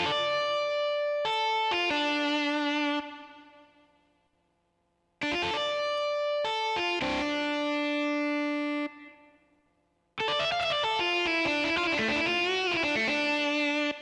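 Yamaha Genos and Tyros 5 arranger keyboards playing an electric guitar voice in three short phrases, alternating between the two instruments, each phrase fading out before the next. The last phrase wavers and bends in pitch.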